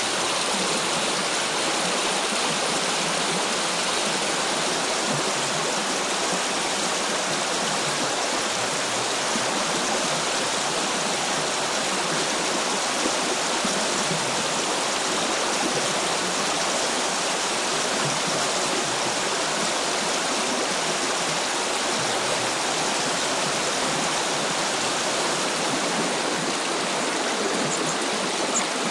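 Shallow river running over gravel, a steady rushing of water.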